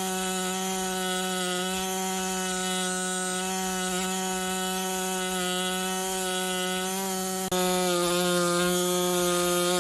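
Small power tool used for fossil preparation running steadily with a buzzing tone while working on a nautilus fossil. An abrupt break about seven and a half seconds in, after which it is louder.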